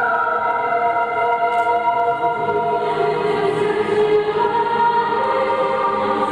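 Mixed choir of men's and women's voices singing sustained chords in a church, moving to new notes about three seconds in and again near the end.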